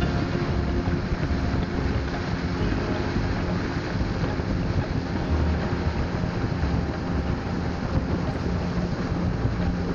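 Speedboat under way, its engine running steadily beneath a dense rush of wind buffeting the microphone and water streaming past the hull.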